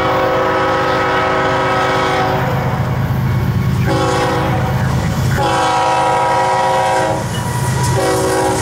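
GE ES44C4 diesel locomotive's air horn sounding a chord in four blasts for the grade crossing, long, short, long, short, given as a horn salute. The diesel engines' low rumble runs steadily underneath.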